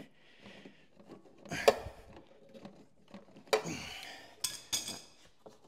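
Metal clicks and clinks of an oil filter wrench working the oil filter loose on a lawn tractor's engine, a sharp click about two seconds in and a few more clinks near the end.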